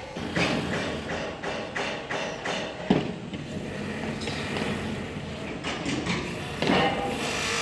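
Construction-site noise: a steady mechanical rumble with frequent knocks and clanks, one sharp knock about three seconds in.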